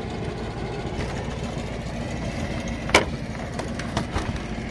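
A small engine running steadily at idle, a low pulsing rumble, with one sharp click about three seconds in.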